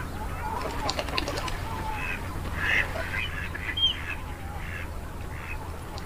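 A flock of white domestic geese calling: many short, overlapping calls, busiest from about two to four seconds in.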